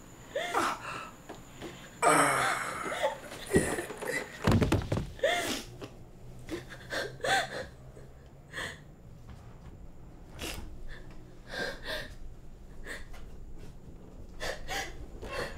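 A person crying without words: gasping, sobbing breaths and short whimpering cries. There is a dull thump about four and a half seconds in.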